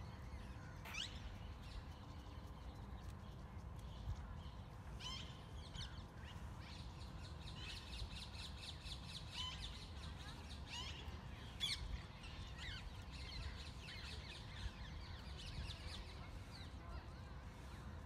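Wild birds calling in the background: a few sharp, quickly sweeping chirps and a fast chattering trill through the middle, over a steady low rumble.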